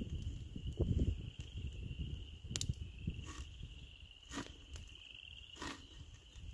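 Small wood fire crackling, with several sharp pops mostly in the second half, as burning sticks drop into a rain-soaked hole and hit the water and wet mud at its bottom. A steady high trill runs behind it.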